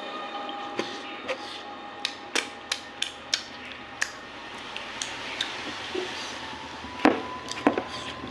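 Tableware clinking during a meal: a run of light clicks and taps, about eight in the first four seconds, then two louder knocks about seven seconds in.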